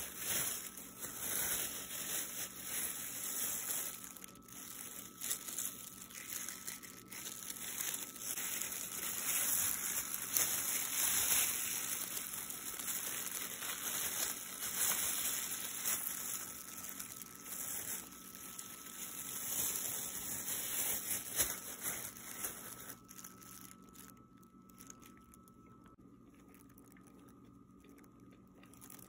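Thin disposable plastic gloves crinkling and rustling against the flatbread as a shawarma wrap is folded and rolled by hand. The crinkling dies down about three-quarters of the way through.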